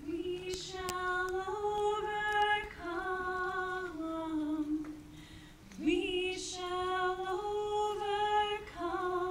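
Slow song on the soundtrack: a woman singing long held notes in unhurried phrases, with a short break about halfway through before the next phrase starts with a rising scoop.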